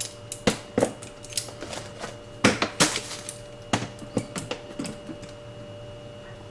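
Irregular clicks and clattering knocks of hard plastic and metal parts being handled while the freezer drawer is worked apart, about a dozen sharp knocks over the first five seconds. A faint steady hum runs underneath.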